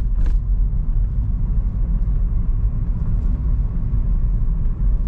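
Steady low rumble of a car being driven, heard from inside the cabin: road and engine noise.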